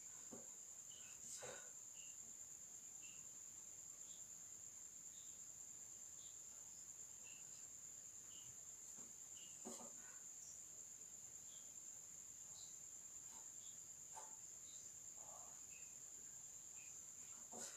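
Near silence: room tone with a steady faint high-pitched whine and three faint clicks.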